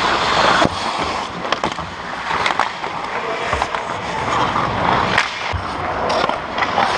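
Ice hockey skate blades scraping and carving the ice close by, a continuous scratchy hiss, broken by several sharp clacks of sticks and puck.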